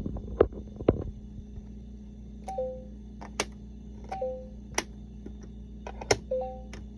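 LeapFrog Fridge Words magnetic word builder: plastic letter pieces are handled with a few thumps and sharp clicks about the first second. Then the toy gives a short two-note falling electronic beep three times, with sharp clicks between, over a steady electronic hum.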